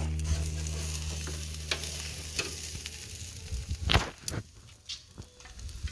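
Sauced pork spare ribs and vegetables sizzling on a grill grate. Several sharp metallic clicks and scrapes from tongs working on the grate come in over the second half, the loudest about four seconds in.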